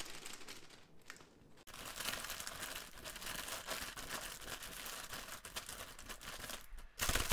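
Plastic bags crinkling and rustling as the last of the grain spawn is tipped in and hands mix it through damp substrate inside a large plastic bag. Quieter for the first second and a half, then a continuous crackly rustle as the mixing gets going.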